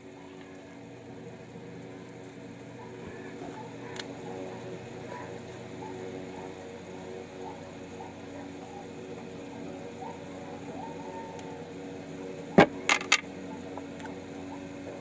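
Steady low room hum with faint indistinct background sounds, broken by three sharp clicks or knocks in quick succession about twelve and a half seconds in.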